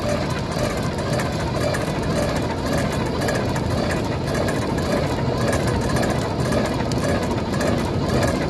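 Small handheld blower running steadily, blowing air into a charcoal grill to fan coals that are burning poorly.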